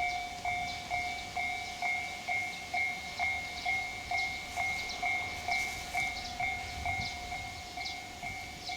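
Japanese railway level-crossing warning bell ringing steadily, an electronic clang repeating about twice a second, warning of an approaching train.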